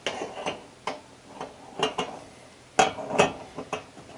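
Dehumidifier top cover being set onto its pillars and knocked into place: a series of about seven sharp clacks and knocks, the two loudest close together about three seconds in.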